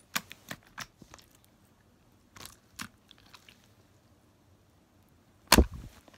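Slime being worked in the hands, giving off scattered sharp clicks and pops as trapped air escapes, with one much louder pop near the end.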